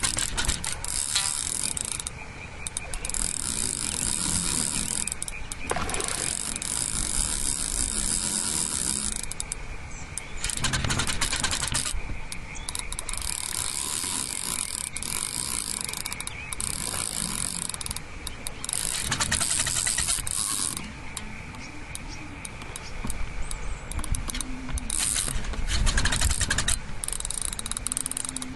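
Fishing reel being wound in stop-start bursts of one to two seconds each, a mechanical whirring and clicking from its gears.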